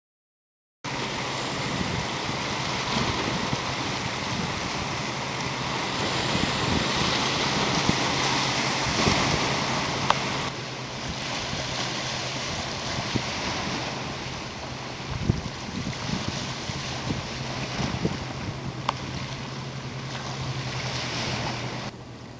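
Small Baltic Sea waves washing against granite boulders at the water's edge, with wind rumbling on the microphone and a low steady hum underneath. The sound starts about a second in and shifts in texture about ten seconds in.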